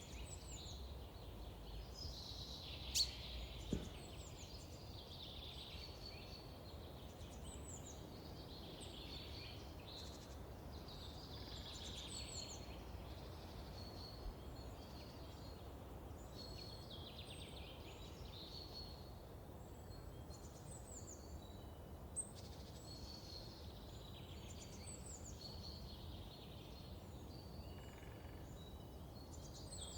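Small birds singing, short chirping phrases repeating every second or two over a steady low background hiss, with a couple of sharp clicks about three seconds in and one more past the middle.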